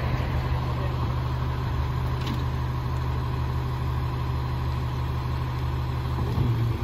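Autocar garbage truck's engine idling steadily while the truck stands for loading.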